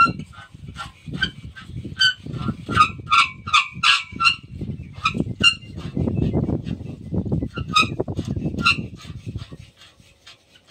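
Metal squeaking from a hand-worked tripod pipe-lifting rig, its iron lever and chain grip on a borewell pump pipe: a run of short squeaks, fastest in the first few seconds, over low thuds and rubbing from handling the pipe.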